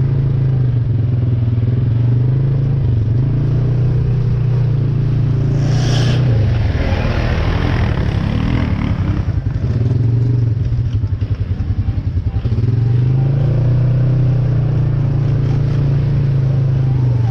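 An ATV engine runs steadily throughout. About six seconds in there is a short noisy burst, and the engine note breaks up and pulses unevenly for a couple of seconds around eleven seconds in.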